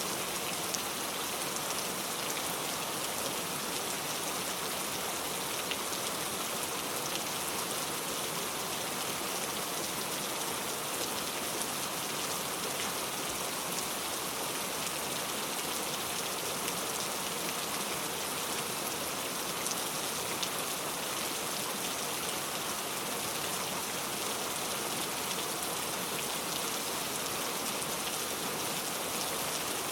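Steady rain falling on a surface, an even hiss with fine scattered drop ticks and no change in intensity.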